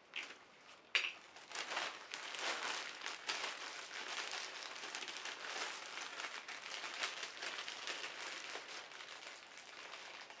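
Plastic bag crinkling and crackling steadily as it is handled, with a sharp click about a second in.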